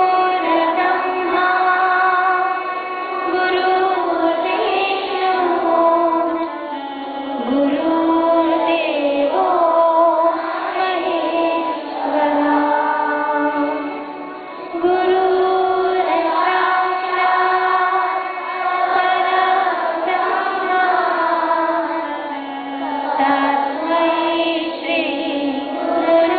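A woman singing a prayer song through a microphone, accompanied by an electronic keyboard holding steady chords.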